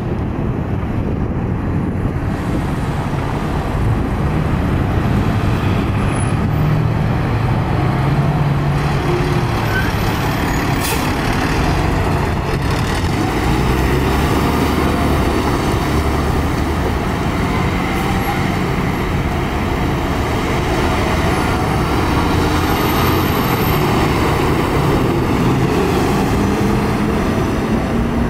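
Steady road traffic with heavy truck engines running, a dense continuous rumble.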